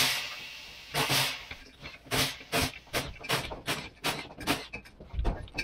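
Torque wrench ratcheting as the bolts of a beadlock wheel's clamping ring are tightened: a string of short clicking strokes, two or three a second, after a brief hiss at the very start.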